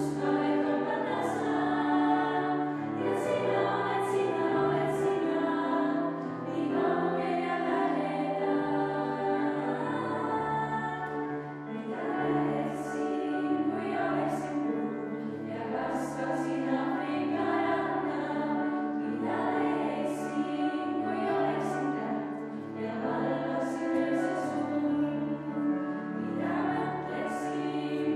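Girls' choir singing in harmony over steady low notes that change about once a second.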